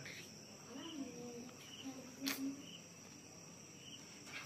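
Insect chorus: a steady high-pitched drone with a short chirp repeating about once a second. A single sharp click a little past halfway.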